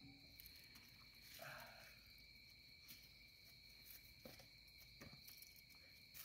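Faint, steady high-pitched trill of crickets, with a few soft clicks.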